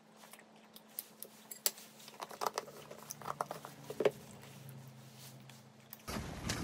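Table knife scraping chocolate spread out of a jar and spreading it on a bread roll: soft scrapes with scattered clicks and a few sharp taps of knife and jar on the plate and counter, over a low steady hum. Near the end it cuts abruptly to a loud, steady rush of outdoor noise.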